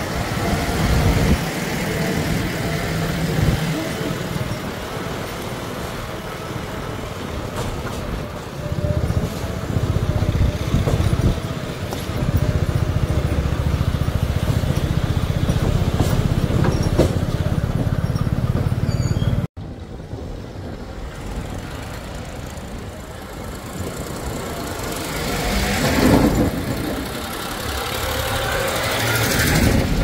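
JCB 3DX backhoe loader's diesel engine running as the machine drives along a road. After a sudden cut, a Massey Ferguson tractor engine runs more quietly, growing louder for a while about three-quarters of the way through.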